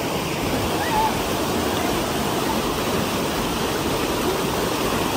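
Whitewater of a mountain stream rushing over boulders: a steady, even roar of water.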